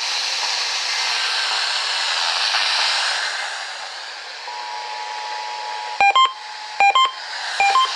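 Radio hiss, then from about halfway the Emergency Alert System's two-tone attention signal sounding steadily from a radio, broken three times by short, loud beeps about 0.8 s apart.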